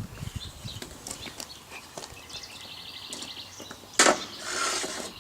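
Light clinks and scrapes of a forged iron bracket and blacksmith tools being handled, with a quick run of scratchy strokes about three seconds in, as of a wire brush on the iron, and one sharp metallic clank about four seconds in.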